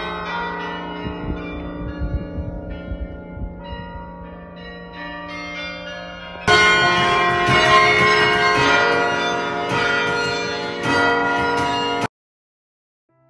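Carillon bells playing a tune, struck notes ringing and overlapping. About six and a half seconds in they turn suddenly louder, then cut off abruptly about a second before the end.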